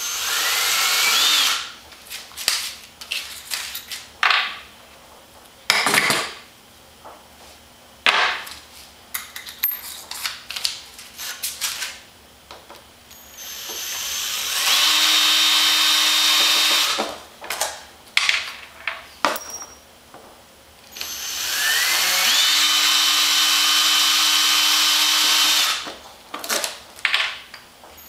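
Ryobi cordless drill backing out the bolts that hold a foam RC plane's wing on. There are three long runs, one near the start, one around the middle and one near the end; each spins up with a rising whine and then holds steady. Between them come short bursts of the drill and clicks.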